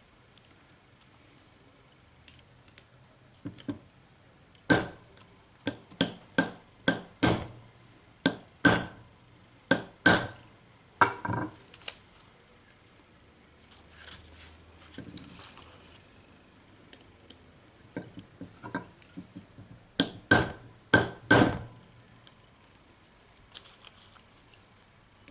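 Hammer tapping a steel nail punch to peen a brass rivet head on a Victorinox Alox pocket knife, resting on a railway-track anvil: sharp metallic taps with a bright ring. They come in runs of several strikes, with lighter taps in the pauses between.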